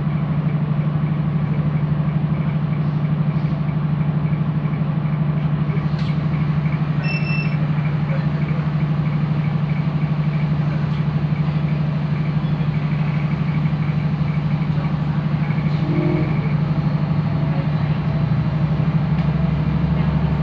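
Diesel multiple-unit passenger train standing at a station, heard from inside the carriage: a steady low engine hum at idle, with a short electronic beep about seven seconds in. Near the end the engine grows louder as the train starts to move off.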